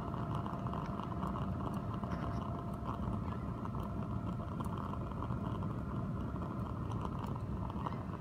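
Tin-can waste-motor-oil gasifier stove burning with a steady rush of flame, air forced in through a hose by a small electric fan, with a thin steady hum over it.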